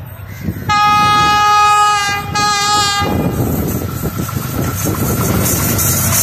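Diesel locomotive horn sounding about a second in, one blast of about two seconds with a brief dip partway through. It is followed by a rising rumble of train running noise as an oncoming diesel locomotive draws near on the adjacent track.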